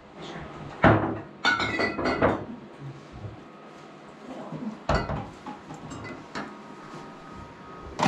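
Kitchenware being handled: a sharp knock about a second in, a run of ringing clinks of dishes or glass just after, and another knock near the middle.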